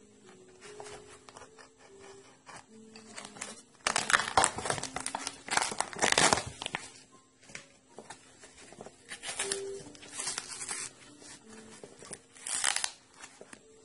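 Cardboard wrapping and packing tape being torn and crinkled open by hand, in irregular bursts. The longest stretch of tearing runs from about four to seven seconds in, with shorter bursts near ten and thirteen seconds.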